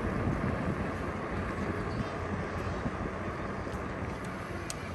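Wind rushing over the microphone and road noise from a moving bike: a steady rushing noise, heaviest at the low end.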